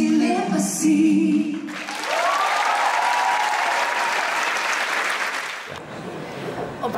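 A sung phrase ends, and about two seconds in a concert audience breaks into applause, with a single held cheer rising above the clapping. The applause cuts off abruptly near the end.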